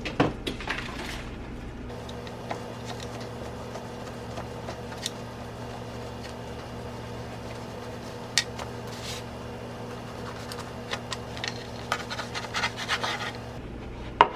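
Light scrapes and clicks of kitchen prep handling on a counter over a steady low hum. There is a sharper tap about eight seconds in and a run of small knocks near the end.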